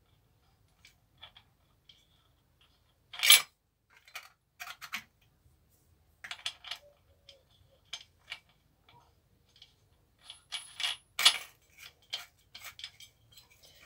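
Small metal clicks and clinks of a Panzer 125 mm angle grinder's cutting disc and clamping nut being fitted onto the spindle by hand, with two louder clacks about three and eleven seconds in.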